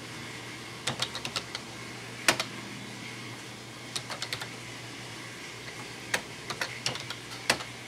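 Keys typed on a Tandy Color Computer 2 keyboard: short runs of key clicks with pauses between them, and a single sharper keystroke about two seconds in and another near the end. A steady background hum runs under it.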